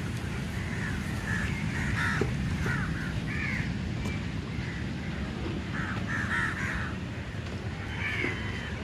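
Birds calling over and over, short calls coming in clusters of two or three, over a steady low rumble.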